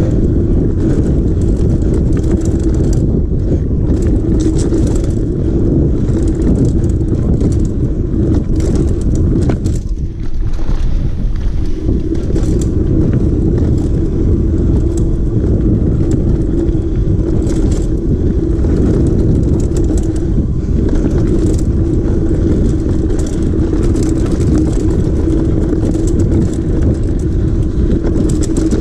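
Mountain bike rolling fast down a rough trail: wind rushing over the camera's microphone and the bike rattling over roots and rocks, with a steady hum under it. The noise eases briefly about ten seconds in.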